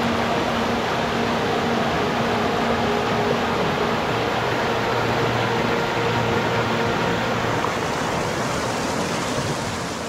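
Mountain stream rushing over rocks in small rapids: steady, even water noise.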